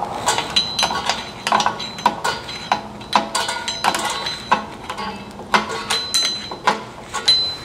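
Toyota Highlander rear parking-brake shoe adjuster being turned with a hand tool to shorten it, so the shoes pull in and the new, thicker drum can fit: a string of irregular metallic clicks and clinks, about two a second, some with a brief ringing.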